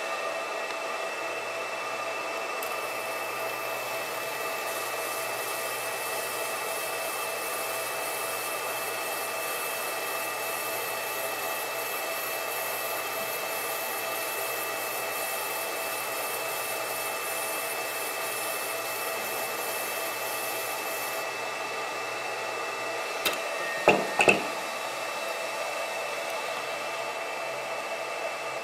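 MarkStar Pro handheld fiber laser marker running with a steady fan hum. A higher hiss joins it a few seconds in while the head marks a barcode, and stops about three-quarters of the way through. Shortly after, a few sharp knocks.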